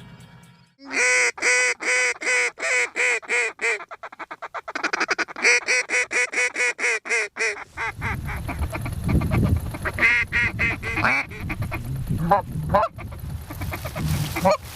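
Canada goose honks in two fast, even runs of about four to five a second, then scattered single honks over a low rumble.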